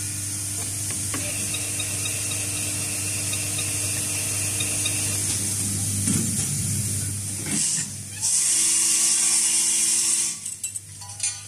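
Automatic spring-making machine running, with a steady motor hum and whine under the clatter of its forming tools. A loud hiss lasts about two seconds in the latter part.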